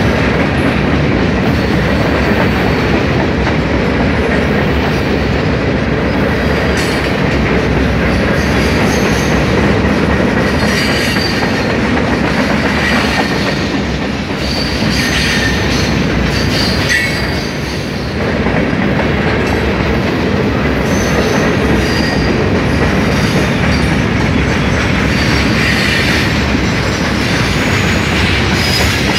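Freight cars of a Norfolk Southern manifest freight train rolling past close by: a loud, steady rumble of wheels on rail, with brief high-pitched wheel squeals now and then.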